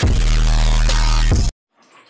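Electronic logo-intro music: a loud, deep, bass-heavy hit held steady for about a second and a half, then cut off suddenly, leaving faint room tone.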